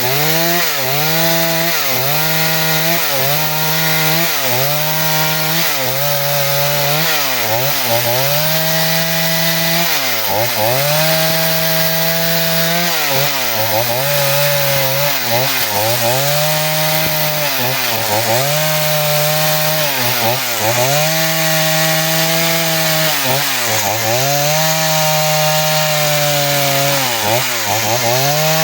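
Two-stroke chainsaw running at high revs while cutting wood, its engine speed dipping briefly under load and picking back up roughly every second or two.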